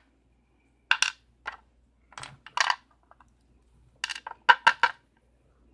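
Small metal parts clicking and clinking in a few quick, irregular groups as a Schlage lock cylinder and lock-picking tools are handled.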